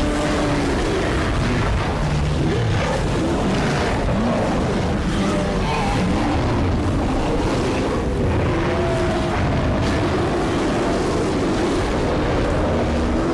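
Dinosaur stampede sound effect: a continuous heavy rumble of pounding feet, overlaid with drawn-out creature calls that glide up and down in pitch.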